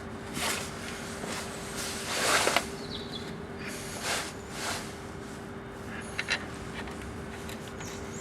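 Brake-caliper bolts being threaded in by hand on a pickup's front brake: a few short metallic scrapes and handling noises, the loudest about two seconds in, and two light clicks about six seconds in, over a steady low hum.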